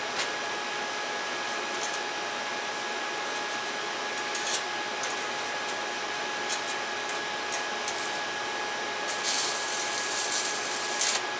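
Stick-welding arc from a 1/16-inch rod at 35 amps on thin exhaust pipe: a few short crackles as the rod is struck, then about two seconds of dense, steady arc crackle near the end as a tack is laid.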